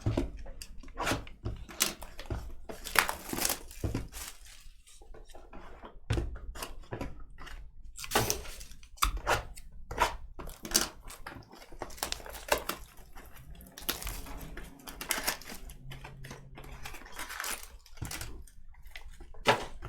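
Hands handling trading-card packaging: irregular tearing and crinkling of wrap and cardboard, with many sharp clicks and taps.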